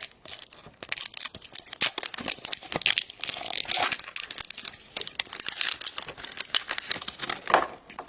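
Packaging being torn open and crinkled by hand while a surprise egg toy kit is unwrapped: a dense, irregular crackling of rustles and small tears.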